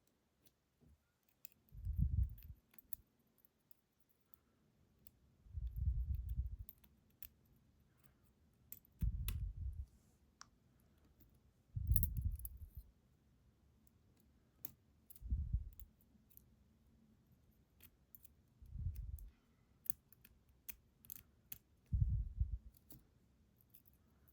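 Small sharp metal clicks of lock pins, springs and tweezers being handled and dropped into a pin-tumbler lock's chambers during reassembly, with soft low swells recurring about every three seconds.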